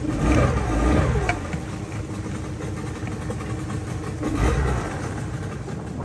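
40 hp outboard motor pushing a wooden pirogue, running steadily, with brief swells in loudness at the start and again about four and a half seconds in.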